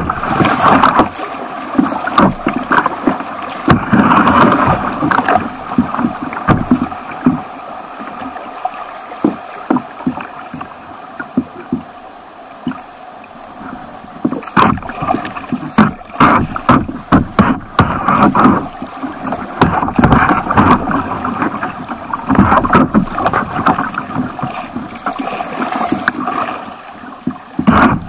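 Stream water rushing and splashing around a kayak running small rapids, with many sharp splashes and slaps of water against the hull close by. It eases off for a few seconds in the middle, then picks up again.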